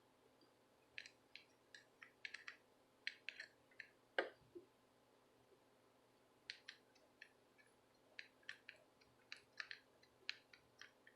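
Faint, irregular small clicks and ticks from soldering work on a circuit board, with one slightly heavier tap about four seconds in.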